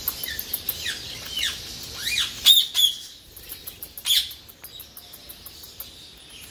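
Aviary birds chirping and whistling: short rising-and-falling calls with quick high ticks, the loudest about two and a half seconds in and again about four seconds in.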